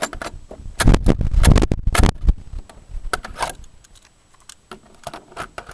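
Irregular clicks and knocks with heavy thumps, densest and loudest about one to two seconds in, then scattered clicks.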